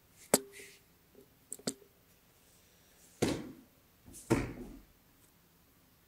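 A sharp clack just after the start, two lighter clicks about a second and a half in, then two heavy thuds about a second apart as a body is thrown down onto the judo mats.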